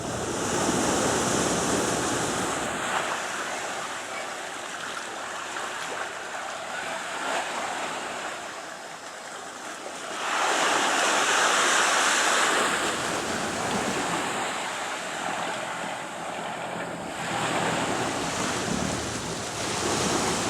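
Sea water washing and surging in swells, loudest about ten seconds in and again near the end, with wind buffeting the microphone.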